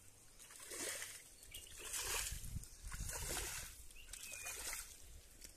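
Hands splashing and sloshing in a shallow muddy puddle while scooping out small stranded fish: several short splashes about a second apart.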